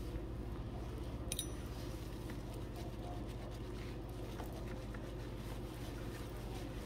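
Hands scrubbing shampoo lather through wet hair at a salon shampoo bowl: soft wet squishing over a steady low hum, with a brief sharp click about a second in.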